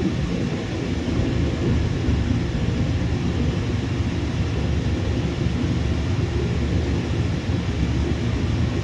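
Jet airliner engines giving a steady low rumble.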